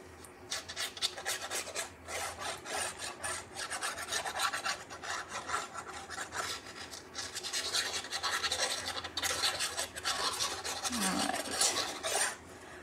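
Liquid-glue bottle's applicator tip scraping over embossed kraft cardstock as glue is drawn across it in lines. It makes a continuous scratchy rubbing, a rapid run of short strokes.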